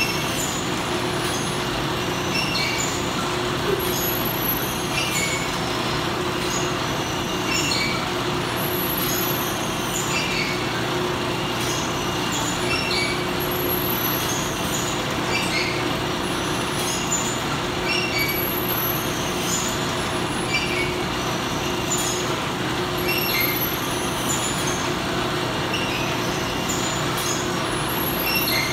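Factory packaging machinery running: a steady drone and hum with short clicks and hisses that repeat about every second.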